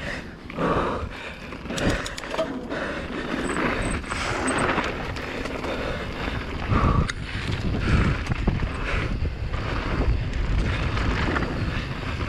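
Giant Reign Advance mountain bike descending a dirt trail at speed: steady wind noise buffeting a chin-mounted action camera, with tyre rumble and frequent clicks and knocks as the bike rattles over the terrain.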